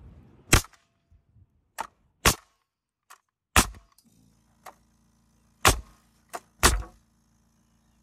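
Metabo NR90 pneumatic framing nailer firing five times into a 2x4, each nail a sharp crack, with lighter clicks between the shots. About four seconds in, the 1-gallon California Air Tools 2010A compressor kicks on with a steady low hum, its small tank drawn down after a few nails.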